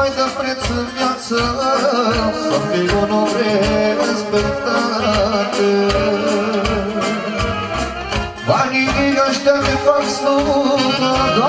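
A man singing live through a microphone over amplified backing music with a steady beat.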